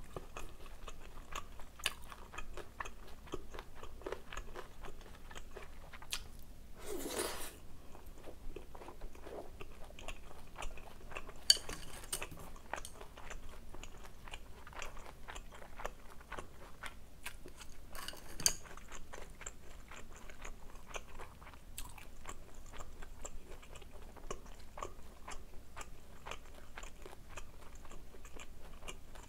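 Close-miked eating: wet chewing of jajangmyeon and glass noodles and crunching of kimchi, in many small clicks. A short breathy noise about seven seconds in, and two brief clinks of metal chopsticks against the glass bowl, around eleven and eighteen seconds in.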